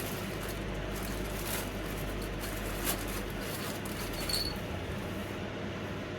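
Faint scratching and a few light clicks of small parts being handled, with a low hum under them, as the sander's on-off switch is being fitted with screws.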